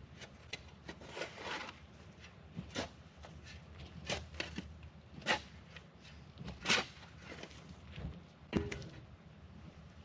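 Footsteps, about one every second or two, each a short crunch.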